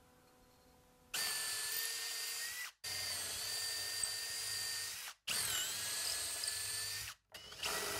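Power drill boring holes into a wooden corner block, running with a steady high whine. It starts about a second in, cuts off abruptly three times, and its pitch sags briefly as the bit bites. The holes are for insert nuts.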